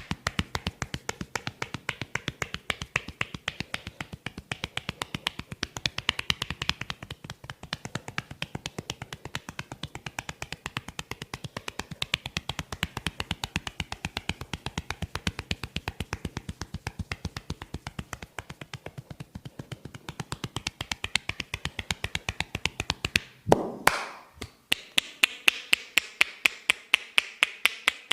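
Rapid, even percussive tapping of hands on a head during a head massage, several strikes a second. A little before the end comes one longer, louder stroke, after which the taps sound sharper and thinner.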